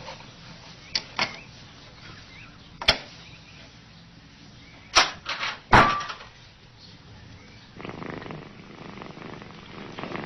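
Sharp knocks and clicks from a cat puzzle box's latch and door as a cat works its way out, the loudest about three seconds in and a cluster near six seconds. Then a cat purring steadily from about eight seconds in.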